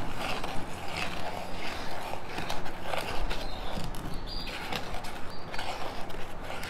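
Metal spoon stirring thick red iron-oxide clay slip (engobe) in a plastic bowl, with irregular small scrapes and clicks as it drags against the bowl.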